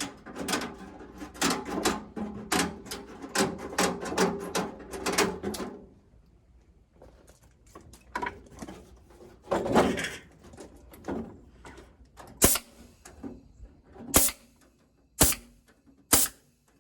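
A quick run of clattering knocks and rattles for about six seconds, then a few scattered knocks, then four sharp single snaps of a staple gun driving staples near the end.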